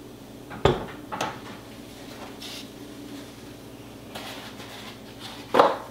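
Kitchen items being handled and set down on a countertop: a sharp knock about half a second in, a lighter clink a moment later, faint handling noises, and another knock just before the end.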